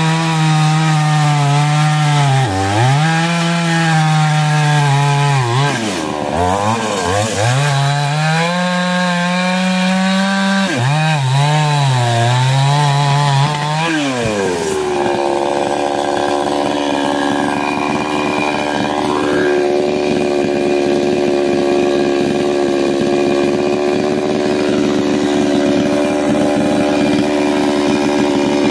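Ogawa chainsaw with a 22-inch bar cutting through a log, the engine note dipping several times as it labours in the wood. About halfway through the cut ends and the engine drops to a steady idle.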